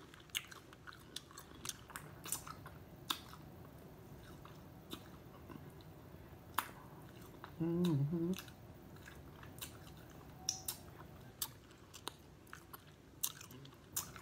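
Close-up eating of boiled crawfish: scattered sharp cracks and clicks as the shells are broken and peeled by hand, with chewing. A short vocal sound from the eater comes about eight seconds in.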